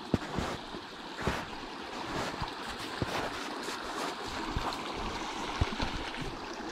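Small mountain stream running, a steady rushing, with scattered short knocks and crunches over it.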